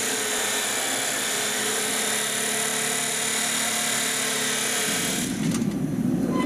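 Kawasaki abrasive chop saw running and grinding through steel rivets to cut them to length: a steady, harsh grind over a motor whine. About five seconds in the grind stops and a lower, rougher roar takes over: the burner of the rivet-heating furnace.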